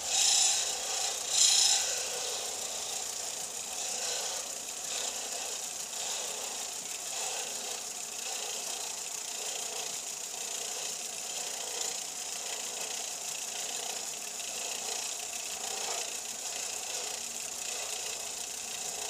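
Central Machinery belt-and-disc sander running with a white plastic pipe cap pressed against its sanding disc, grinding the cap's edge down. Loudest in the first two seconds, then a steady grinding hiss.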